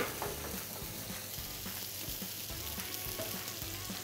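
Beef steak sizzling steadily in a frying pan, with a sharp click near the start and light ticks and scrapes of tongs working the meat.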